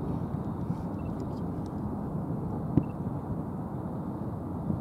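Steady low rumbling background noise, with one sharp click a little past halfway.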